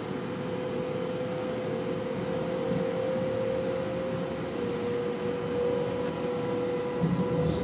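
Steady running noise inside a train's driver's cab as it rolls along, with a constant hum that drops slightly in pitch about halfway through.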